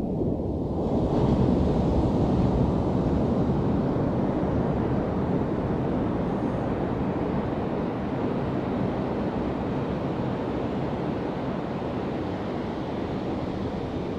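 Surf breaking on a sandy beach: a wave crashes about a second in, then a steady wash of water. Wind buffets the microphone.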